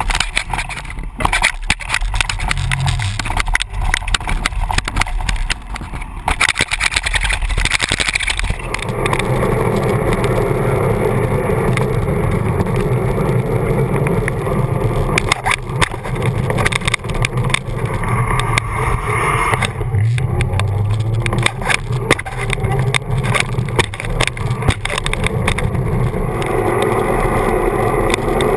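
Riding noise picked up by a camera mounted on a bicycle's front fork: knocks and rattles as the bike bumps over grass for the first eight seconds or so, then a steady rushing hum of the tyre rolling on pavement with wind on the microphone, still broken by occasional knocks.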